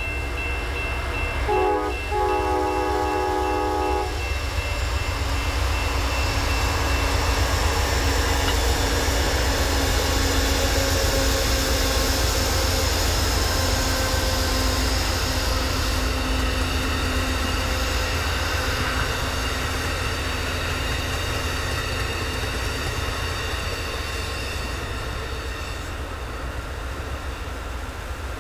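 Amtrak GE Genesis P42DC diesel locomotives sounding a multi-note horn chord: the tail of one blast, then a second short blast a couple of seconds later. The locomotives and a passenger train then pass close by with a heavy rumble and rolling hiss, easing off near the end.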